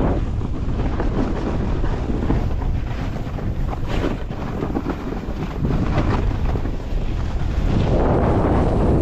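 Wind buffeting the microphone of a camera carried by a snowboarder riding downhill: a steady rushing noise that dips a little in the middle.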